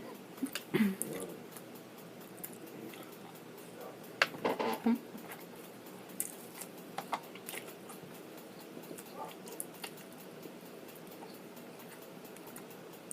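Close-miked chewing and mouth sounds while eating, with scattered sharp clicks, likely from a spoon.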